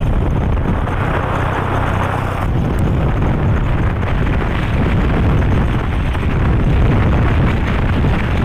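Wind buffeting the microphone of a camera riding along a road on an open vehicle, a loud steady rumble with the vehicle's engine hum underneath.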